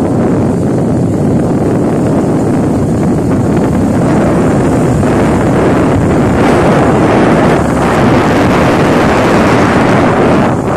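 Steady wind rush on the microphone of a moving motorcycle, with the bike's engine and road noise mixed in underneath.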